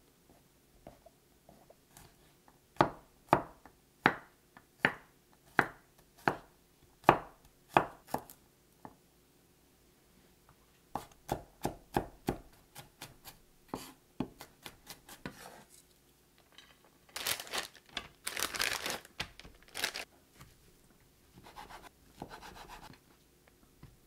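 A kitchen knife chopping on a cutting board in a steady run of sharp strokes, about two a second, then a second, quicker run after a pause. Later come a few seconds of noisier, continuous sound.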